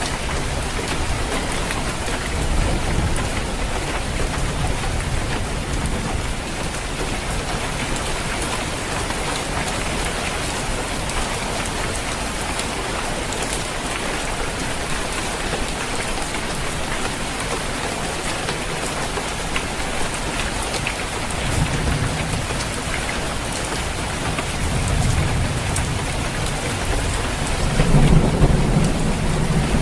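Steady rain falling on a roof, with low rolls of thunder several times, the loudest near the end.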